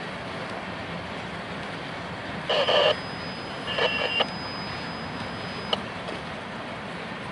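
Freight train cars rolling past at steady speed, a constant noise of steel wheels on rail. About two and a half seconds in, and again near four seconds, a short high-pitched tone sounds over it, the loudest thing here; a faint thin high tone runs between them and ends with a sharp click just before six seconds.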